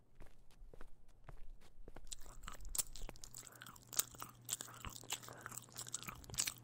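Footsteps for about two seconds, then wet crunching and chewing sound effects of flesh being eaten.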